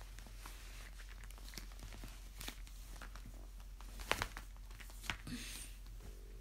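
Rustling and light handling noises of a doll being dressed in a fabric nightgown, with scattered small clicks and a few soft knocks, the loudest about four seconds in.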